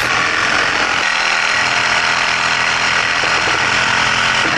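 Cordless reciprocating saw running at full speed, its blade cutting through a rusted, seized steel bolt in a Subaru's rear suspension knuckle, a loud steady buzz of blade on metal.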